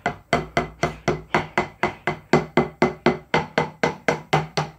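Drumstick striking a Prologix tenor (multi-pad) practice pad in an even run of single strokes, about five a second.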